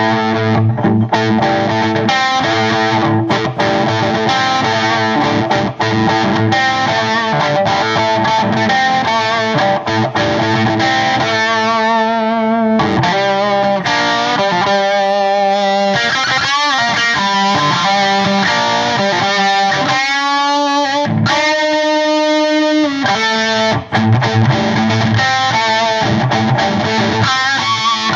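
1962 Gibson Les Paul (SG-body) electric guitar played with light overdrive through a Cornford Roadhouse 50 tube amp and a 4x12 cabinet, its volume knob at 6. It opens with chords, moves to single-note lead lines with bends and vibrato about twelve seconds in, and returns to chords near the end.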